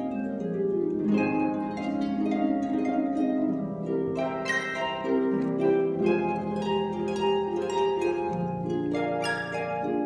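Concert pedal harp played solo: a quick stream of plucked notes ringing over held lower notes, with brighter, stronger plucked chords about four and nine seconds in.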